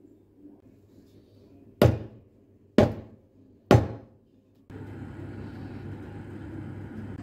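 A metal loaf tin full of cake batter banged down on the counter three times, about a second apart, to settle the batter and knock out air bubbles. About a second later a steady hum starts, the sound of the oven running.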